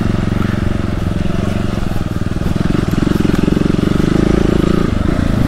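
Single-cylinder motorcycle engine running on an off-road ride, its note swelling a little partway through.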